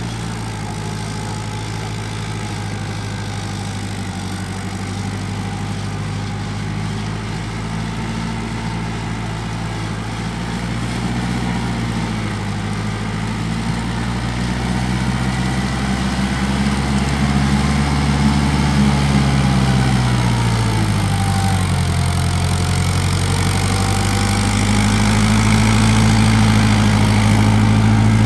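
Kubota four-wheel-drive tractor's diesel engine running steadily under load while it pulls a rotavator through wet mud, growing louder as it comes closer. The engine note sags about twenty seconds in, then picks back up.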